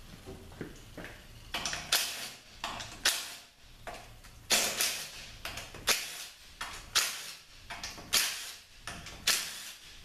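Cordless drill-driver backing out the valve body bolts on a Ford 4R100 automatic transmission, about ten quick runs of the drill roughly a second apart.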